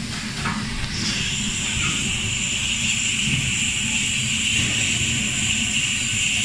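Commercial gas-heated popcorn machine running: a steady low rumble from the machine, joined about a second in by a steady hiss that holds to the end.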